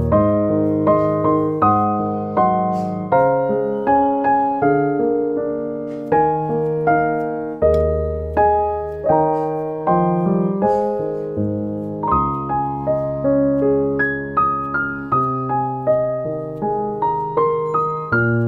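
Background piano music: a steady run of struck notes over lower chords, each note fading after it is played.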